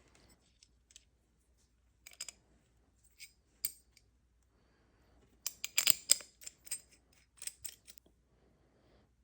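Metal parts of a propane camping stove and hand tools clicking and clinking during disassembly: a few scattered sharp clicks, then a quick run of clinks about halfway through.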